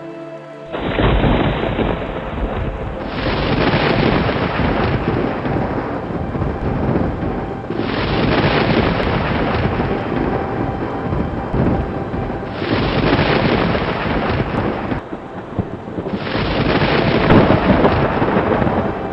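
Thunderstorm: several rolls of thunder over steady rain. Each roll starts abruptly and dies away over a few seconds, with a fresh one coming in about every four to five seconds.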